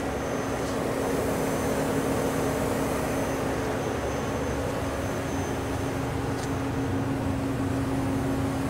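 Hurco BMC-20 CNC vertical machining center running a program cycle: a steady hum from its spindle and axis drives, with one constant low tone.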